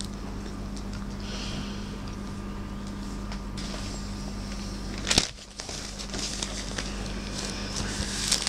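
A husky gnawing and chewing on a pear, soft crunching and crackly bites over a steady low hum. About five seconds in there is a sudden loud knock, followed by crinkling of newspaper under the pear along with more chewing.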